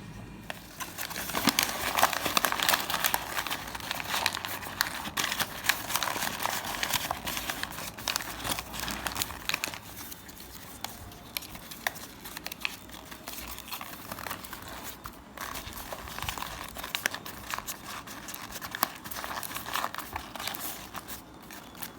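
Paper being crumpled and crinkled by hand, in a busy run of rustling through about the first half, then in sparser bursts.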